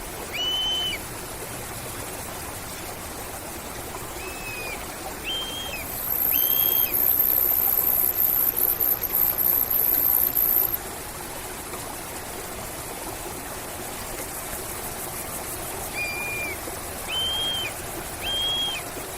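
Hawk calling in short, clear whistled notes: one near the start, then two runs of three, one note about a second apart, over a steady hiss. A loud, high, thin buzz runs for about five seconds in the middle.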